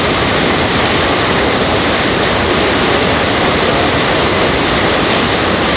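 Steady, loud rush of the Rhine Falls, a great mass of water pouring over the falls.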